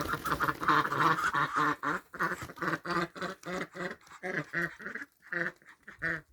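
Domestic ducks quacking: many short quacks overlapping at first, then coming as separate quacks about three a second.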